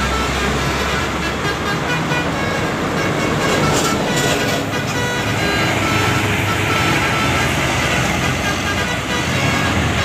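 Telolet backing track: Basuri multi-tone bus horns playing short, chiming horn tunes as music, over a steady rumble of road traffic.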